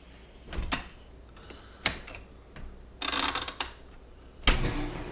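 Knocks and clatters of a dishwasher being handled: a few separate clicks, a short rattle in the middle, then a loud thump near the end, after which a steady low hum sets in.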